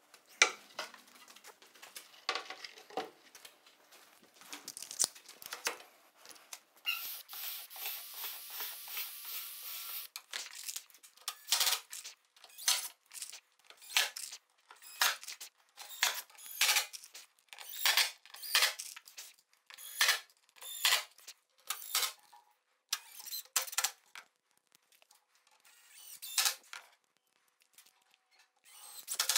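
Cordless drill/driver sinking screws into multiplex plywood: after a few faint clicks and a steadier stretch of a few seconds, a long series of short bursts, about one a second, as screw after screw is driven in.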